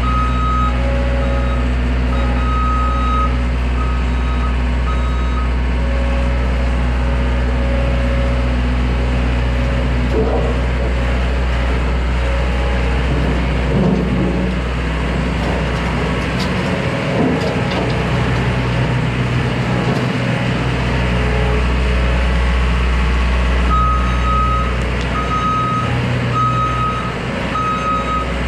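Small skid steer's engine running steadily as it works, with its backup alarm beeping near the start and again from about 24 seconds in.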